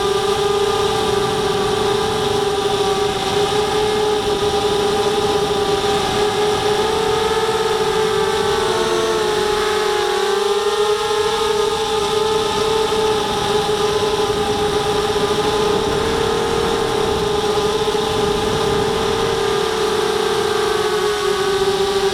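Brushless motors and propellers of a ZMR250 racing quadcopter whining steadily, heard up close from a camera on the frame; the pitch dips and climbs back about halfway through.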